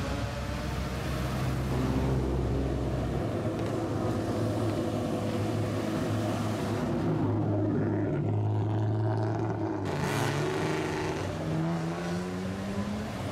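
Engines of lowered classic Japanese sedans running through loud exhausts as the cars roll slowly past one after another, with the engine pitch rising in a rev over the last couple of seconds.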